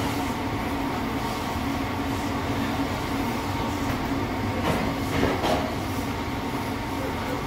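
Commercial kitchen exhaust hood fan running with a steady rumble and a low hum. A couple of light knocks about five seconds in as the plate is lifted.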